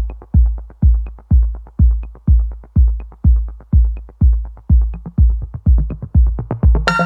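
Background music: a deep bass drum beat about twice a second with light ticks above it, and a bright melody joining near the end.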